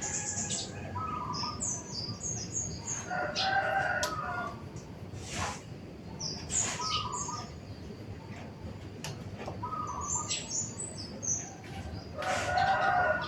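Several birds chirping and calling over one another in a morning chorus: many short, high, repeated chirps and some lower calls. Two louder, longer calls come about three seconds in and again near the end.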